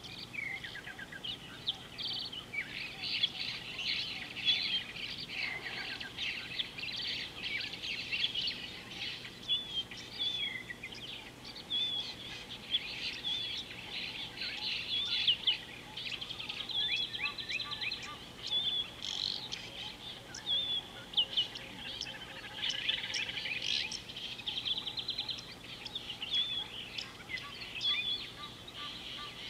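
Several birds calling at once: a busy chorus of short high chirps, rapid trills and a repeated short whistled note, overlapping and continuing throughout.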